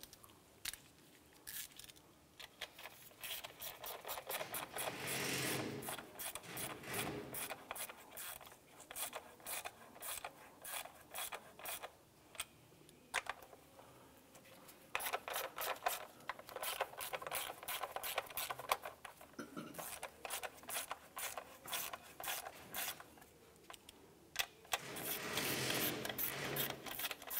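Hand ratchet clicking in quick runs as 10 mm nuts are run down to hold the ignition coils on the valve cover, with light metal clinks of socket and nuts in between. The runs are densest about five seconds in, from about fifteen to nineteen seconds, and near the end.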